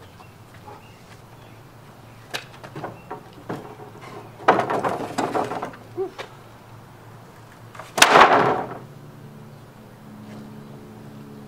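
Wooden camper wall frame knocking and clattering as it is tipped down, then landing with a loud wooden slam about eight seconds in as it drops flat onto the matching wall frame.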